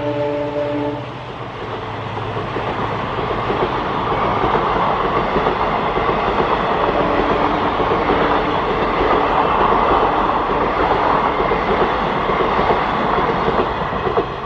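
Train horn sounding a chord that cuts off about a second in, then a passenger train of ICF coaches running past, its wheels on the rails making a steady loud rush that swells after the first couple of seconds.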